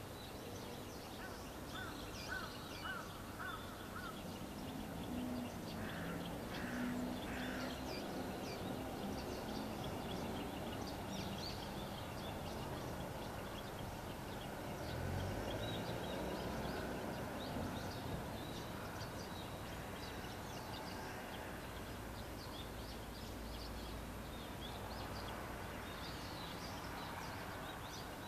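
Birds chirping and calling outdoors, many short calls throughout, with a few lower repeated calls in the first several seconds. A faint low steady hum sits underneath.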